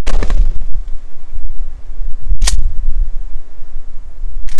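12-gauge Mossberg 590 Shockwave pump shotgun firing slugs: two sharp blasts about two seconds apart, one about two and a half seconds in and one near the end. The ringing of a shot fired just before is dying away at the start.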